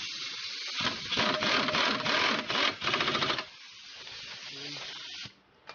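Air impact wrench hammering on the bolt joining the front strut to the steering knuckle: a loud rattle of fast even blows for about three seconds with a brief break, surrounded by a steady hiss that cuts off near the end.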